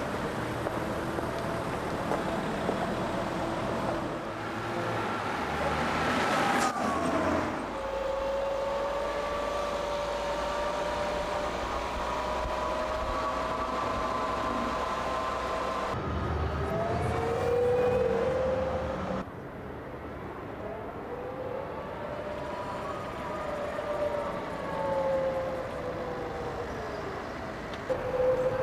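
Electric motor of the BMW C1-E concept scooter whining as it rides, its pitch rising and falling with speed, over road and street noise. About six to seven seconds in the whine sweeps sharply down as it passes by.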